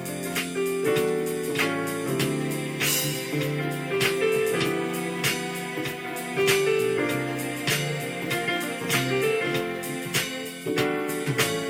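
Instrumental music played on a keyboard instrument: a melody over sustained chords, with notes struck in quick succession.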